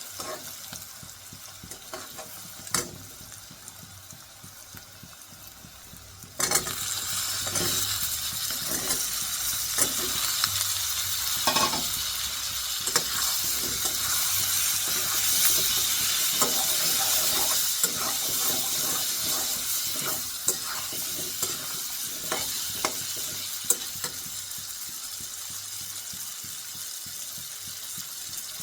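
Cabbage stir-fry cooking in a pan: a low sizzle with scattered clicks of stirring, then about six seconds in the sizzle jumps suddenly much louder and carries on with frequent stirring clicks and scrapes, easing slightly near the end.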